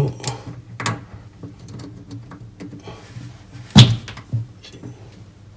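A small flat-bladed screwdriver clicking and scraping against the metal tap body while prising a tight plastic ring out of the spout socket, with one louder knock about four seconds in.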